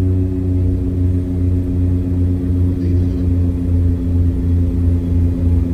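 Airliner cabin drone in flight: a loud, steady low hum with several even tones over it, unchanging throughout.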